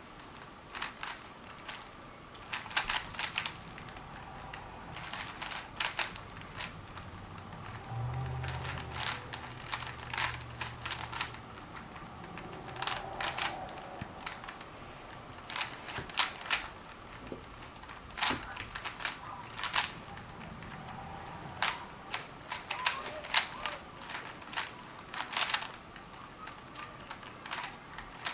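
Rubik's Cube being solved: the plastic layers twist with sharp clicks, coming in quick irregular flurries of turns with short pauses between.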